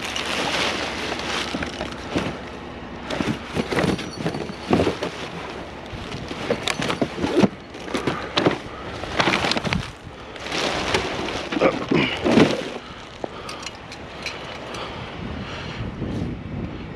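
Scrap metal and curbside junk being handled: irregular clanks, scrapes and rustling, with wind on the microphone.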